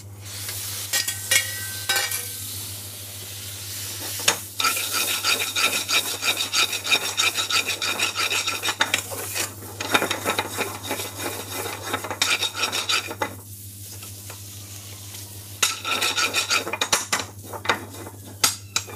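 A long metal spoon scraping and stirring against a metal frying pan as raw chicken pieces are turned in a hot spice paste, with a light sizzle from the frying. The scraping comes in two long spells with a short lull between them, over a steady low hum.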